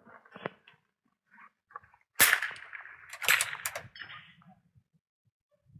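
Two sharp shots from a .22 rimfire rifle about a second apart, the first about two seconds in.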